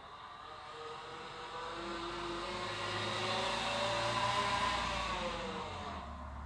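A vehicle passing by, its sound swelling to a peak and then fading away over several seconds.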